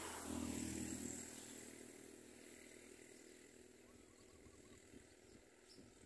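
A distant motor vehicle passing: a low rumble, loudest in the first second and fading away over the next two, leaving faint outdoor background.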